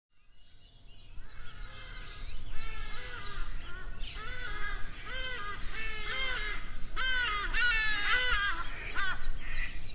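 A flock of birds calling, with many short, harsh calls overlapping and repeating. The sound fades in over the first second or two and grows louder.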